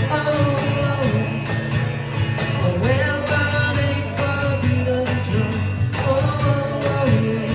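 A live cover of a pop-rock song: a singer holds and glides through long notes over guitar accompaniment, with a steady beat underneath.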